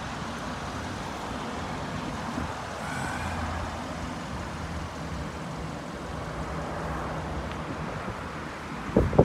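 Steady low rumble of vehicle traffic with a faint engine hum underneath. A short burst of low buffeting comes near the end.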